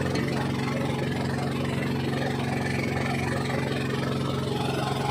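Small fishing boat's engine running steadily, an even drone with a hiss over it.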